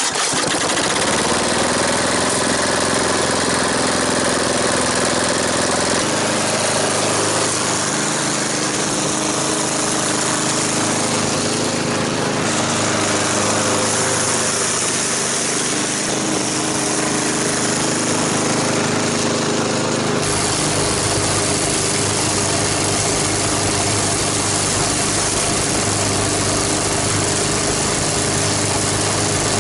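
Lawn mower's small engine running with peanut oil in its crankcase, rising in pitch about a second in and then holding steady, its tone shifting abruptly a few times.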